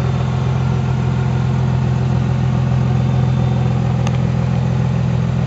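Jeep KK Cherokee engine idling steadily through a newly fitted Magnaflow stainless muffler (dual 2.25-inch pipes in, single 3-inch tailpipe out), heard close beneath the vehicle as an even, low exhaust rumble.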